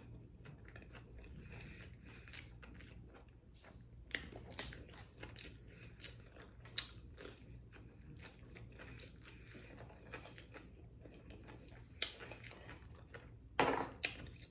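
Close-miked chewing and biting of battered fried fish with coleslaw: a steady run of wet mouth smacks and small crunches, with a few sharper clicks and a louder burst near the end.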